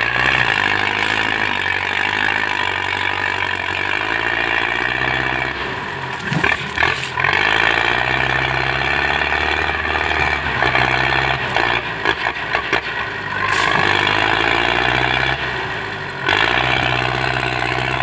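Belarus 510 tractor's diesel engine running under heavy load as it pulls a loaded trailer, its speed dropping and picking up again a few times. Several sharp knocks sound near the middle.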